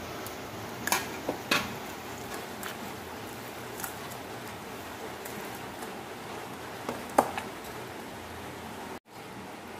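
Hands mixing raw chicken with spices, onions and tomatoes in a stainless steel bowl: soft squishing over a steady hiss, with a few sharp clinks against the steel about a second in and a louder one about seven seconds in.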